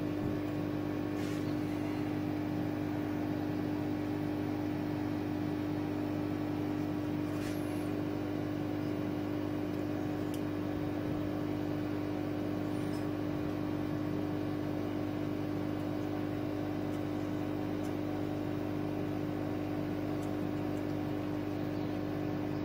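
Steady motor hum with one strong low tone, unchanging throughout. A few faint clicks come from a metal aerosol tin being handled on the rollers of a rotary engraver.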